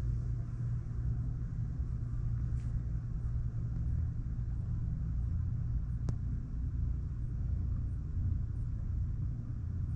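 Steady low hum, with a single faint click about six seconds in.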